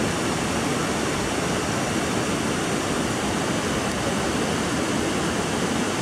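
Steady rush of a full-flowing waterfall, high water pouring over rock ledges.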